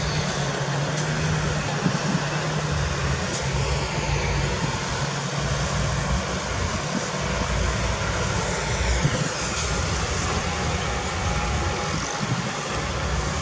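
Heavy diesel engines of road-building machinery running steadily, with a whine that falls in pitch about eight seconds in.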